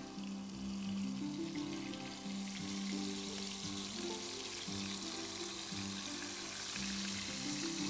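Flour-coated fish pieces sizzling as they shallow-fry in hot oil in a frying pan, a steady hiss. Background music with held notes plays along.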